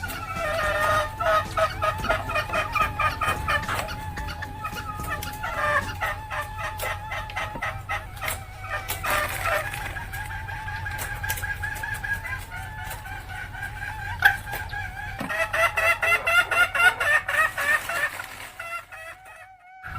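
Female junglefowl cackling ('ngekek'): three bouts of fast, repeated clucks, with a thin steady tone underneath.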